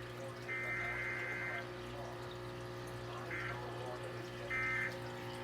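Radio receiver hiss and a steady low hum between weather radio broadcasts, with three short bursts of stacked high-pitched tones: the first lasts about a second, and the other two come near the end.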